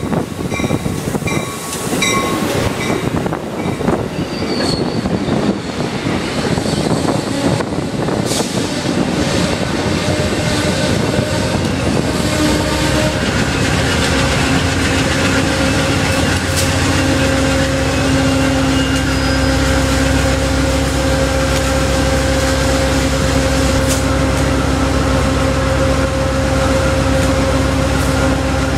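GE P42 Genesis diesel locomotive pushing its train out of the station: wheels clatter on the rails at first, with a repeated ringing for the first couple of seconds, then the locomotive's V16 diesel engine comes up to a loud, steady drone under power from about halfway in.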